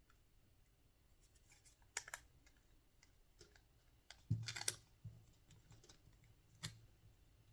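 Faint clicks and taps of small metal hardware and a hand tool being handled: a light click about two seconds in, a short burst of clicks around four and a half seconds, and one more near the end.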